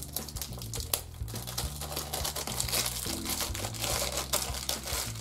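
Packaging crinkling and rustling in irregular crackles as a new 2x2 speedcube is unwrapped, over quiet background music.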